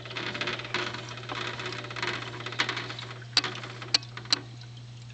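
Water pattering and splashing down a small two-tier tank waterfall, over a steady low hum from its pump. The pattering eases off a little past halfway, and a few sharp clicks come near the end.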